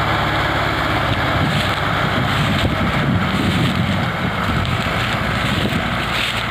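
Tractor engines working under load, hauling a heavily loaded sugarcane trolley, with wind buffeting the microphone.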